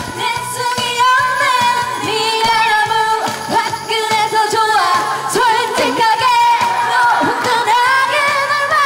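Women singing a trot song into karaoke microphones over a karaoke machine's backing track, belting high notes with wavering vibrato.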